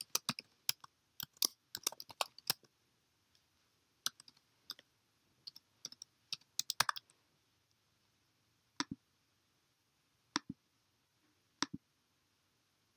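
Typing on a computer keyboard: quick runs of key clicks for the first seven seconds or so, then scattered single clicks a second or more apart.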